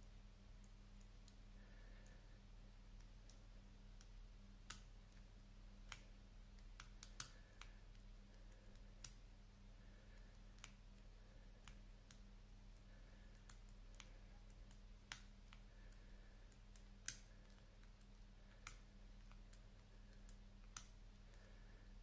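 Four-wheel combination padlock being decoded by shackle pull: its number wheels are turned under tension, giving about a dozen small sharp clicks at irregular intervals.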